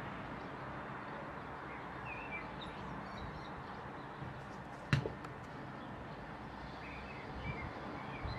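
Small birds chirping a few times over a steady outdoor background hiss, with one sharp click about halfway through.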